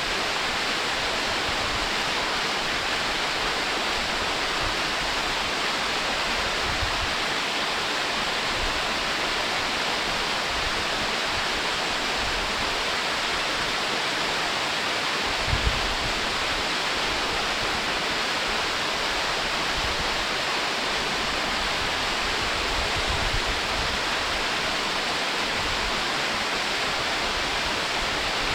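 Waterfall pouring over rock: a steady, even rushing of falling water, with a brief low rumble about halfway through.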